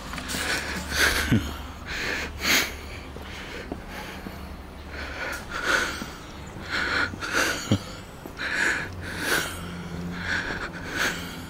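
A person breathing close to the microphone while walking, in irregular short puffs, over a low steady rumble.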